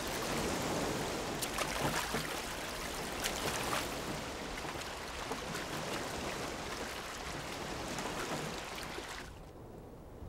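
Sea water rushing and splashing around a rowed wooden boat, with sharp oar splashes in the first few seconds. The rushing cuts off about nine seconds in, leaving a quieter, duller sound.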